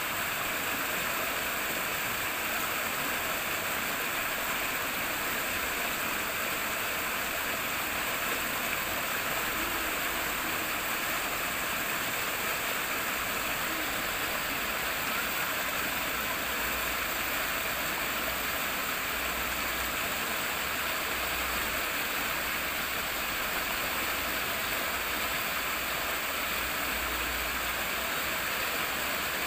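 Running water: a steady, unbroken rush of flowing water like a stream or small cascade, with a low rumble coming and going underneath.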